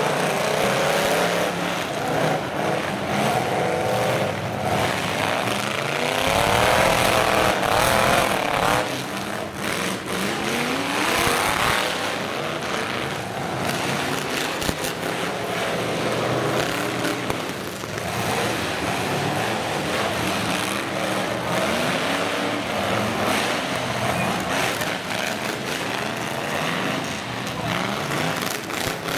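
Several demolition-derby truck engines revving hard, their pitch rising and falling again and again as the trucks accelerate and ram, with a few sharp knocks among them.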